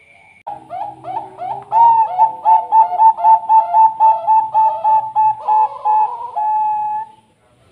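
Zebra dove (Thai-bred perkutut bangkok) cooing: a fast run of short, clipped coos, about three a second, ending in one longer held note.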